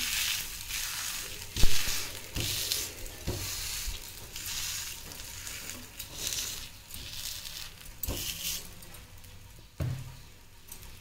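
Ragi adai sizzling in sesame oil on a hot dosa griddle, the hiss swelling and fading. A metal ladle presses and scrapes the dough flat, with a few light knocks against the pan.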